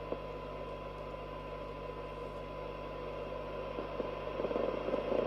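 AKD 4001 4-metre FM transceiver's speaker receiving a weak test signal during a receiver sensitivity check: a steady 1 kHz test tone buried in hiss, over a low hum. The noise grows rougher and louder near the end.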